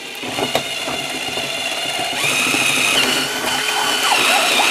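Electric drill turning a hole saw as it cuts through the hard plastic shell of a Mystic 8 Ball, growing louder as it bites. A steady high whine joins the cutting noise about two seconds in.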